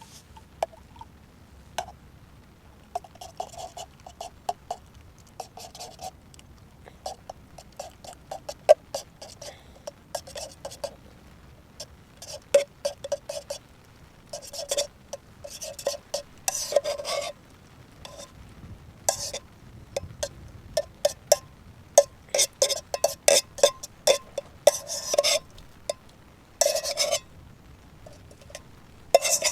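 A metal spoon clinking and scraping against a metal camping pot in quick, irregular taps, with a short ringing note after many of them.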